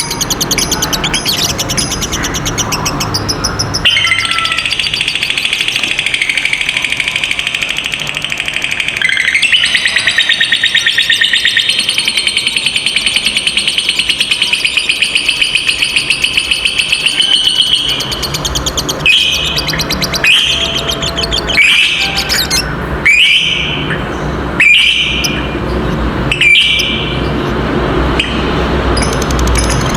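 Lovebird chattering in one long, rapid, high-pitched trill ("ngekek panjang") lasting about fourteen seconds, followed by a run of short separate calls.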